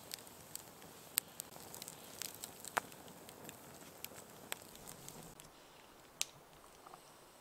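Wood campfire crackling: irregular sharp pops and snaps over a faint hiss, a few louder pops standing out.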